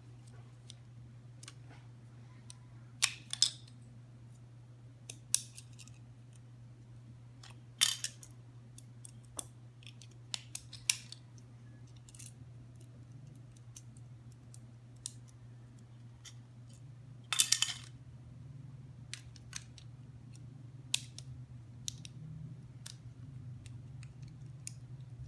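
Hands handling an unboxing package: scattered sharp clicks and short scraping, crinkling noises of plastic and cardboard, a few louder ones, over a low steady hum.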